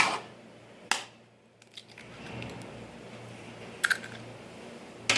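A hen's egg being cracked on the rim of a bowl and added to the chicken: a few sharp taps, one about a second after the first, then a quick double click and another tap near the end.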